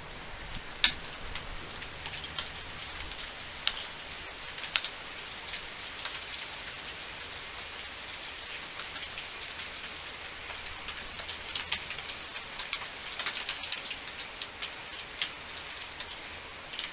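Steady rain hiss with scattered sharp drip ticks of drops landing close by. The loudest tick comes about a second in, with a busier run of ticks near the end.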